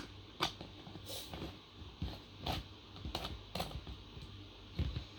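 Glitter slime being squeezed and poked by hand, giving a string of short wet squelches and pops at uneven intervals.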